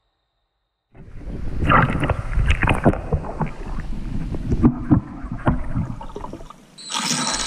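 Heavy metal chain dropped into a swimming pool, recorded underwater through hydrophones: it comes in suddenly about a second in as a dense run of clanks and rattles over a low, muffled rumble of churning water, eases off, then another loud burst starts near the end.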